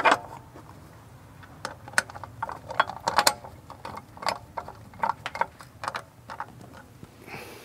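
Screwdriver turning the screws that hold the cover on a pool pump motor's control box, a string of irregular small clicks and ticks.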